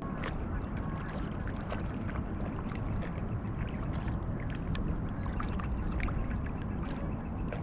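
Kayak paddling on calm river water: irregular small splashes and drips from the paddle over a steady low rumble.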